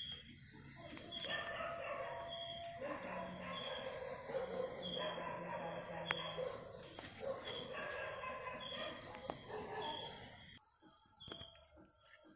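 Night insects: a steady high-pitched drone with a chirp repeating about once a second, under louder, longer calls from some other animal. The sound drops away suddenly about ten seconds in.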